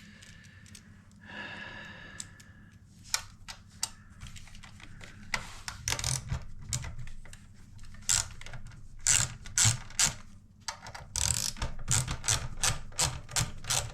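Blaupunkt München RD 104 car radio being taken apart by hand: a run of sharp clicks and taps of its metal and plastic parts, coming thicker and louder in the second half, with a brief squeaky tone about a second and a half in.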